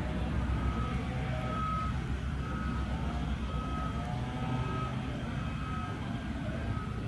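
Reversing alarm of a construction vehicle beeping a single steady tone about once a second, over the low rumble of its engine.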